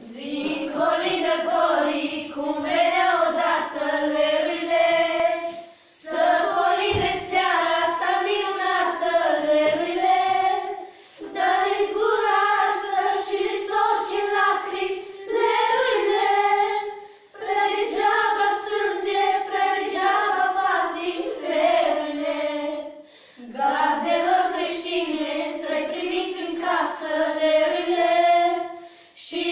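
A group of schoolgirls singing a traditional Romanian Christmas carol (colindă) together, unaccompanied, in phrases of about five or six seconds with short breaks for breath between them.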